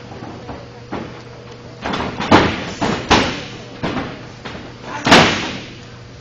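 A series of sharp hits from wrestlers striking each other and hitting the ring, each echoing in a gym hall. The loudest land about two and a half seconds and five seconds in.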